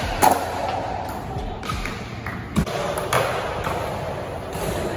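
Skateboard on a smooth concrete floor: several sharp clacks and thuds of the board popping and landing, with the rumble of wheels rolling between them.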